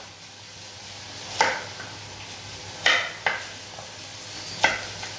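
Kitchen knife cutting carrots on a wooden cutting board: about four sharp knocks, mostly about a second and a half apart, over a faint steady sizzle of onion frying in a pot.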